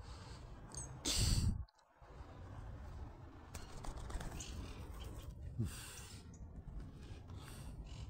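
A person breathing out hard, close to the microphone: a long sigh about a second in, and a shorter one near six seconds.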